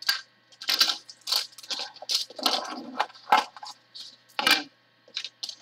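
Packaging being handled: a clear cellophane packet crinkling, then a small cardboard box of plastic trays and pens being opened and moved, heard as a string of short crinkles and light clicks.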